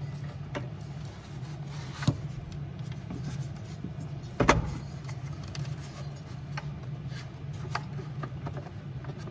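Scattered clicks and knocks of the diesel heater's combustion chamber being handled and seated into its case, the loudest a knock about four and a half seconds in, over a steady low hum.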